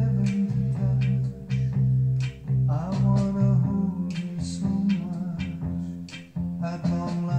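Recorded music played from a CD through a Luxman 5L15 integrated amplifier and its speakers, heard in the room: plucked guitar over a strong bass line whose held notes change every half second or so, with a shift in the bass pattern about three seconds in.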